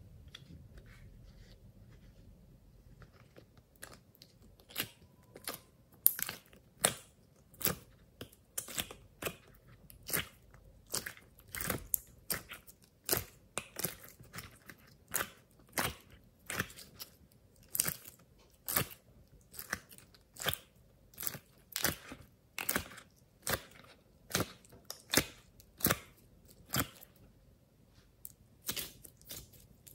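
Soft clay being squeezed and kneaded by hand, making short, sharp sticky squelches about once a second. The first few seconds are quieter, as the clay is peeled out of a heart-shaped mold.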